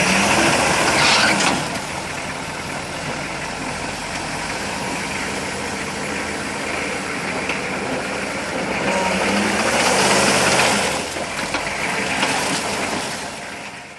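Hummer H1 running off-road: a continuous engine and vehicle rumble that swells louder briefly about a second in and again around ten seconds.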